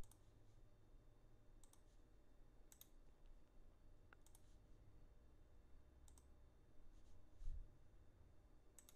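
Faint computer mouse clicks, a scattered handful over several seconds, against near silence.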